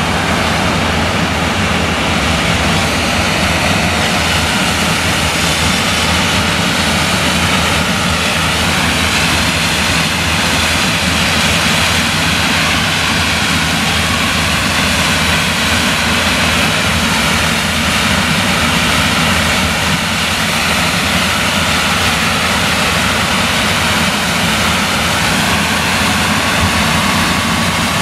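New Holland CX combine harvester running under load, with its eight-row Geringhoff corn header cutting standing maize. The engine and threshing machinery give a loud, steady drone.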